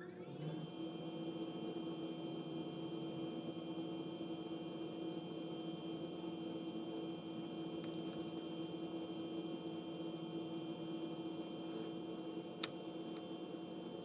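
A small electric motor running with a steady hum of several constant tones, settling at full speed just after the start. A single sharp click sounds near the end.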